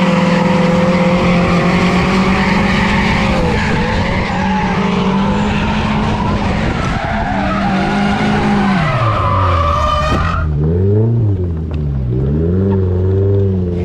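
Mazda Miata four-cylinder engine held at high revs with tires squealing through a drift; about nine seconds in the revs fall away, the tire noise stops, and the engine is blipped up and down several times. The engine is running with a misfire in cylinder 4.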